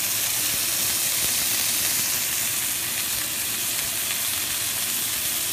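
Two sirloin steaks sizzling in hot fat in a cast-iron skillet as they sear on their second side: a steady hiss.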